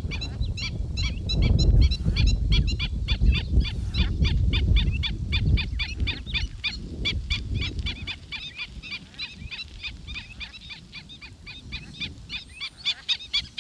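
A flock of birds calling over and over, short sharp cries several a second, the calls of birds disturbed at the water's edge. A low rumble sits under the first half.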